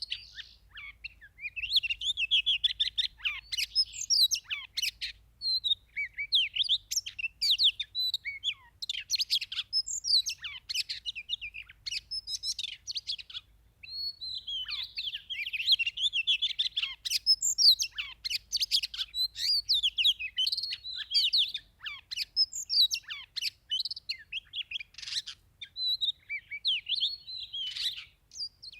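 Oriental magpie-robin singing a long, varied song of rapid chirps, trills and whistles, with a brief pause about halfway through.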